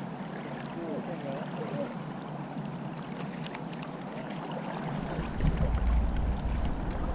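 Steady noise of flowing river water, with a low wind rumble on the microphone from about five seconds in.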